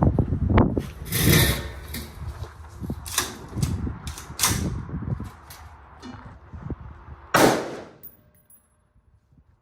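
Single rifle shots of 5.56 ammunition fired through a Shrike belt-fed upper, several sharp reports at uneven spacing with a short ring after each. The last loud shot comes about seven and a half seconds in.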